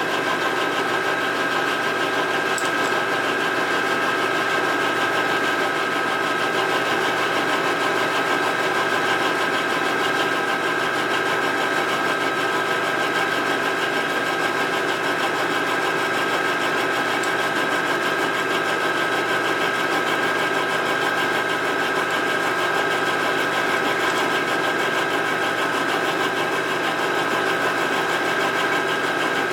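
Vertical milling machine running, its end mill cutting steadily into the aluminum crankcase of a 1947 Harley-Davidson knucklehead as the case is turned slowly under the cutter. A steady machine whine with several high tones that holds throughout.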